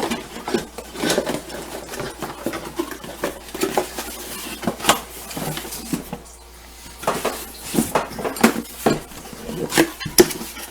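Parts being handled and unpacked: irregular clinks and knocks of metal brackets and hardware mixed with rustling of packaging.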